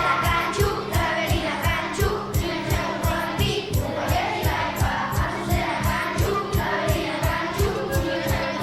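Music with a fast, steady beat and a group of voices singing.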